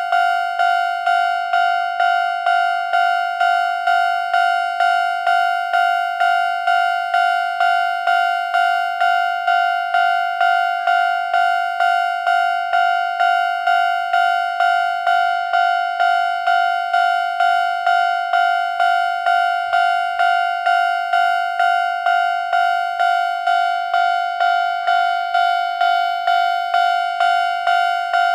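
Railroad crossing warning bell ringing, the same single-pitched ding repeated in a quick, even rhythm without pause, signalling that a train is approaching and the crossing is closed.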